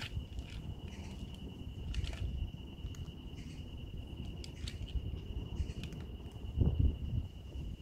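An insect trilling steadily on one high pitch, with scattered soft clicks and low rumbling noise beneath it. The trill cuts off at the very end.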